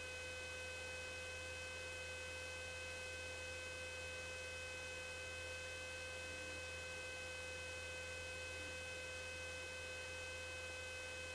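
Steady electrical hum with a faint high whine and hiss, unchanging throughout; no engine or voice stands out.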